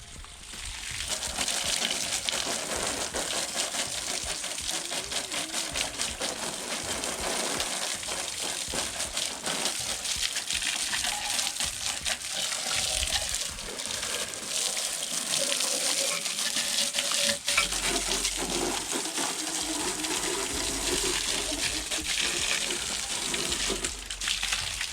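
A pressurised water jet hissing steadily as it sprays onto a motorcycle during a wash, washing off the dirt.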